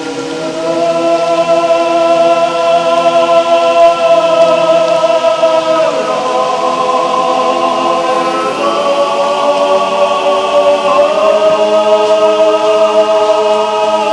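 Background music: sustained choir-like voices holding long chords, changing chord about six and eight and a half seconds in.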